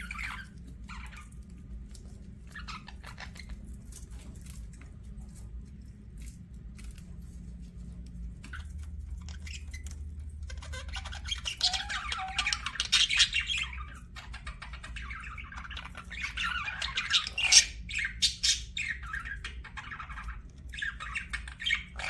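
Budgerigars (budgies) chirping and chattering: scattered short chirps at first, then bursts of busy, squawky chatter from about halfway through.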